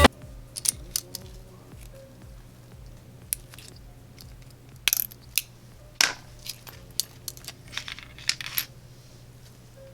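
Small metal tools clicking and tapping against the parts of a smartphone being taken apart: scattered, irregular light clicks, the loudest about six seconds in.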